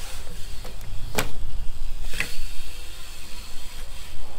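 Gusty wind rumbling on the microphone while a BMX bike rolls across a concrete bowl, with two sharp clicks about one and two seconds in.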